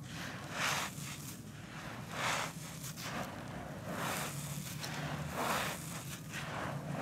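Hands scooping and crumbling dry, dusty soil full of fine gravel: gritty, crunchy swishes repeating roughly every second and a half as clumps are lifted and break apart.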